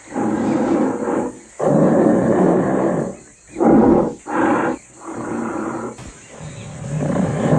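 King Kong's giant-ape roar sound effect, repeated: a string of about six separate roars, some long and some short, with brief gaps between them. The last one swells up near the end.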